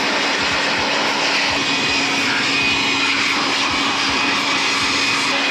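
Handheld electric air blower running steadily at full speed: a loud rush of air over a steady motor whine.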